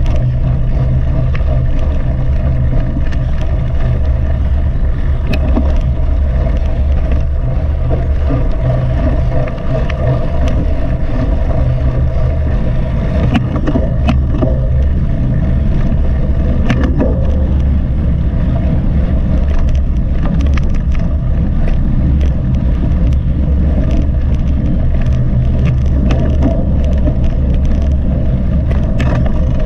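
Steady low rumble of wind and riding noise on a GoPro carried on a mountain bike at speed, with scattered clicks and rattles from bumps in the trail.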